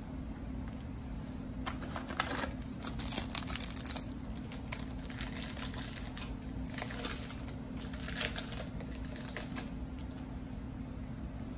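Trading-card pack foil crinkling and cards rustling as a Donruss Optic basketball pack is torn open and handled. The sound comes in bursts of quick crackly clicks from about two seconds in, over a steady low hum.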